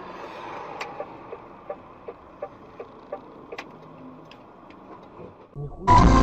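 Car turn-signal indicator ticking evenly, about three ticks a second, over steady road noise inside a moving car. Loud music cuts in abruptly near the end.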